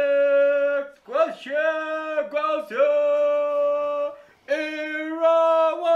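A voice holding long, steady notes, about four drawn-out phrases with short breaks between them, sung or wailed.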